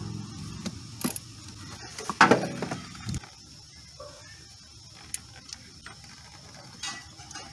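Clicks and knocks of hand work on a car's coolant bypass valve and its plastic hose fittings, the loudest knocks about two seconds in. A low hum fades out about three seconds in.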